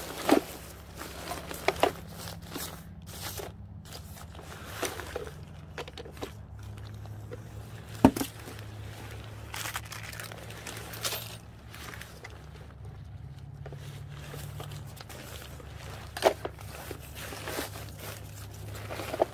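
Rustling and crinkling of an inflatable decoration's thin nylon fabric and plastic packaging being unfolded and handled, with a few sharp knocks, the loudest about eight seconds in. A steady low hum runs underneath.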